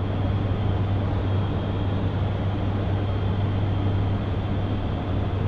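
ATR 72-600 turboprops' propellers droning steadily, heard inside the cockpit: an even low hum with rushing airflow noise over it.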